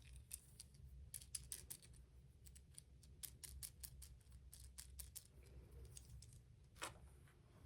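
Faint, irregular plastic clicking as a 3D-printed articulated toy is handled and its jointed segments are moved, with one louder click near the end.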